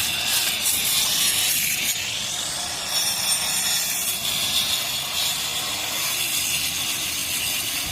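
Power tool grinding a groove into a wall for concealed AC piping. It gives a steady, harsh cutting noise with a high motor whine that slides in pitch a couple of seconds in as the load changes.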